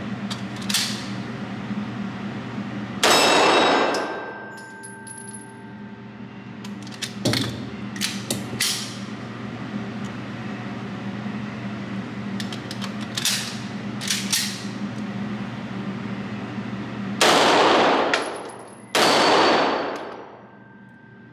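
Walther P38 9mm pistol shots echoing in a concrete indoor range: one shot about three seconds in and two more near the end, about a second and a half apart. Quieter sharp cracks and clicks come between them.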